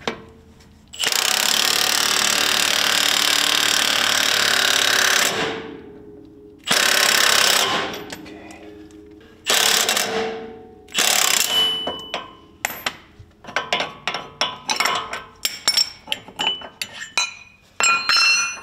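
Cordless impact wrench hammering on the forcing screw of a ball joint press, pressing a new upper ball joint into the steering knuckle. One long run of about four seconds comes first, then several shorter runs. Near the end it gives a string of quick short bursts as the joint seats.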